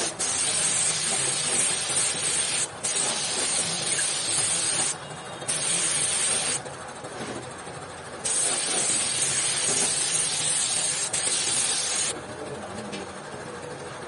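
Air spray gun spraying silver paint: a loud, even hiss that is cut off for moments as the trigger is let go, with a longer pause about five to eight seconds in. About twelve seconds in the spraying stops, leaving a quieter hiss.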